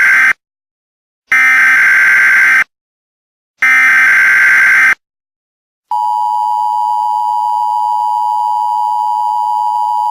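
Emergency Alert System tones: the end of one SAME header burst and two more, each a harsh buzzing data burst about 1.3 s long with silent gaps between. About six seconds in, the steady two-tone EAS attention signal begins and holds.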